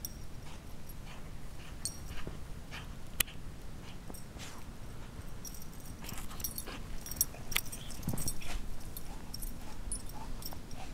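Belgian Malinois bounding through deep snow with a marrow bone in her mouth, making irregular clicks and clacks.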